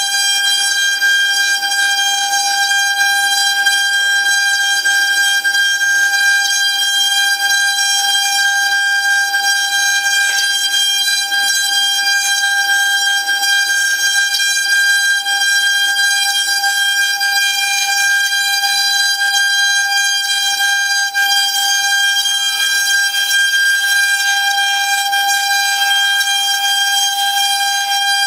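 Eight-spindle CNC router engraving a wooden board: the spindles give a loud, steady high-pitched whine that holds one pitch throughout.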